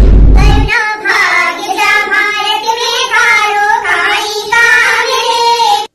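A short loud rushing burst with heavy bass, then from just under a second in a woman's high voice singing a song in phrases, with the other women in the group joining in.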